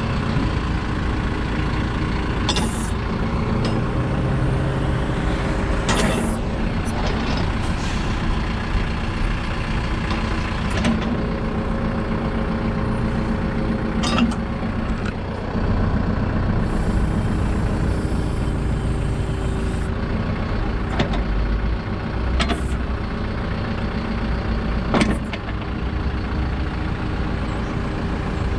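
2019 Branson 4720H tractor's diesel engine running while its backhoe is worked, the engine note shifting as the hydraulics take load. Several sharp clanks or hisses from the backhoe come through at uneven intervals.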